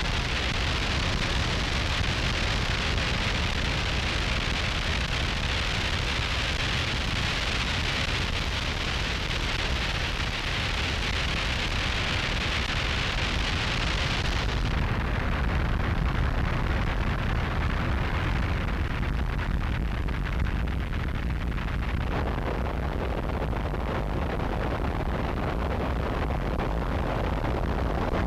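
Harsh noise wall recording: a dense, unchanging mass of static noise with heavy low-end rumble. About halfway through the hiss on top is cut back abruptly, leaving a duller wall of noise.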